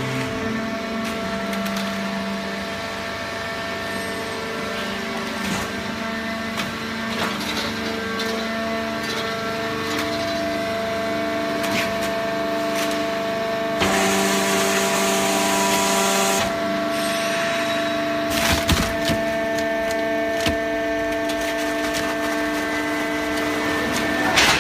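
Hydraulic power unit of a cardboard baler running with a steady hum and whine that shifts pitch a few times. Scattered clicks run through it, and a hiss rises a little past halfway.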